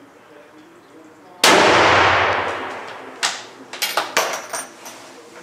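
A Remington 700 Police bolt-action sniper rifle fires a single shot about a second and a half in, with a long ringing echo that fades over a second or more. It is followed by a quick series of sharp metallic clicks and clanks as the bolt is worked.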